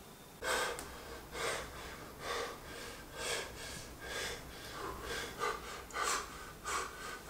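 A young man sobbing: short gasping breaths and sniffs, roughly one a second, coming a little quicker near the end.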